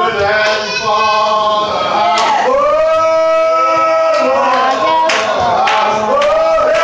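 A man's prayer chanted in long, drawn-out sung notes, the voice sliding and holding each note rather than speaking.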